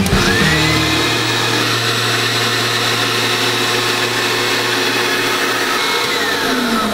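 Vacuum pump motor of a screen-printing exposure unit starting with a click, whining up to speed within about a second and running steadily, then winding down with a falling whine near the end. The pump is drawing the rubber blanket tight against the glass to hold the film to the screen during exposure.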